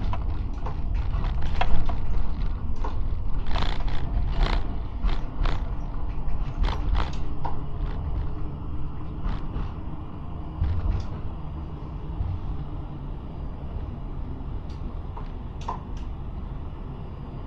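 Tram running along its track: a steady low rumble with many sharp clicks, knocks and short squeaks from the wheels on the rails. It is busiest and loudest in the first half and grows quieter and calmer toward the end.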